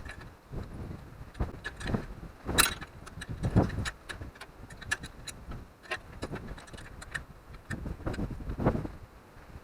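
Hand tools and metal parts clinking, clanking and knocking at an irregular pace as a minibike is taken apart, with a few heavier knocks among the lighter clicks.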